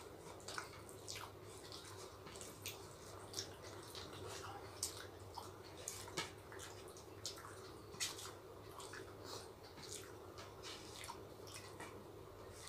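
Faint, irregular wet clicks and smacks of people chewing and working rice and curry with their fingers, over a low steady hum.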